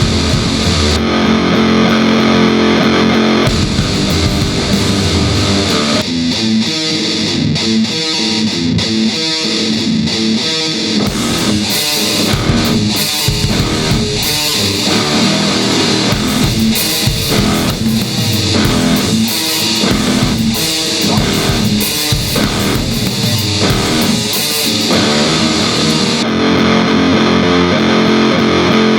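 Doom metal instrumental at 100 bpm, distorted electric guitar with bass. It opens on held chords, switches a few seconds in to a choppy riff of many short strikes, and returns to held chords near the end.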